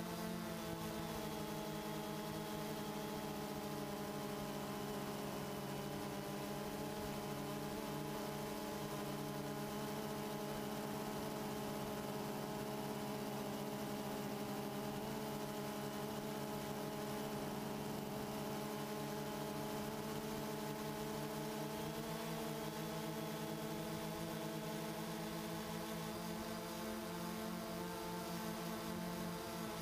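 DJI Phantom 2 quadcopter's motors and propellers whirring steadily in flight, heard from the GoPro camera mounted on the drone. The pitch wavers slightly later on as the motors change speed.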